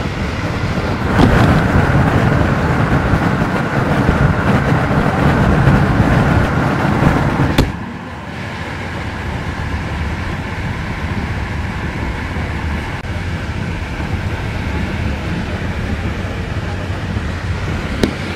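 Intercity passenger train running at speed, heard inside the carriage: a steady rush of wheels on rails. It grows louder about a second in and drops off suddenly with a sharp click a little past halfway, and another short click comes near the end.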